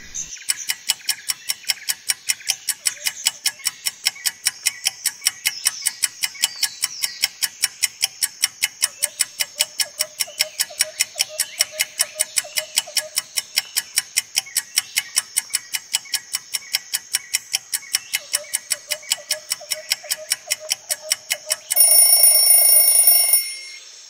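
Countdown timer sound effect: a clock ticking rapidly and evenly, then an alarm ringing for about a second and a half near the end as time runs out.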